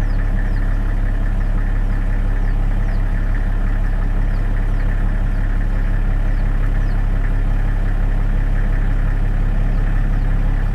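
An engine idling, a steady low drone with a constant pitch. Faint short high chirps fall in pitch now and then above it.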